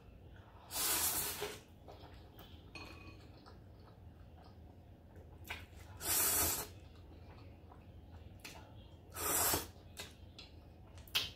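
Three long, hissy noodle slurps, about a second in, about six seconds in and about nine seconds in, as spicy instant noodles are sucked off chopsticks. A short click comes near the end.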